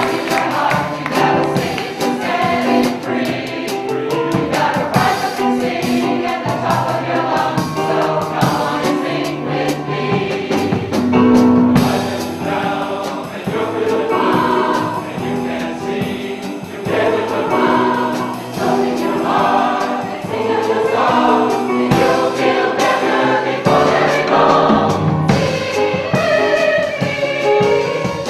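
Community chorus singing a song.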